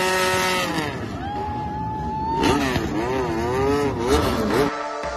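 Motorcycle engine revving hard during a burnout that spins the rear tyre into thick smoke, its pitch swinging up and down with repeated throttle blips. Electronic music cuts in near the end.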